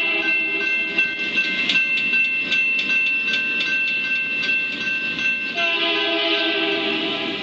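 Diesel locomotive horn blowing a grade-crossing signal for the approaching freight: one blast fades about a second in and a second starts near the end. Between them a railroad crossing bell rings rapidly, about three or four strikes a second, as the gates come down.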